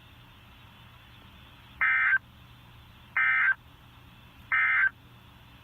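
Three short Emergency Alert System end-of-message data bursts, the warbling two-tone SAME signal, each under half a second and about a second apart, marking the end of the alert. Faint radio hiss fills the gaps between them.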